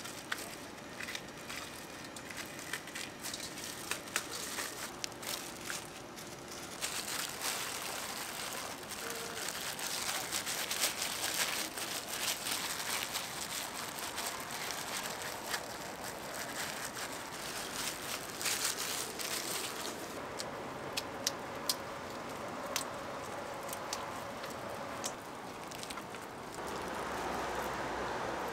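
Battered twigim deep-frying in hot oil, a steady crackling sizzle that swells for a stretch in the middle, with scattered sharp clicks of utensils later on.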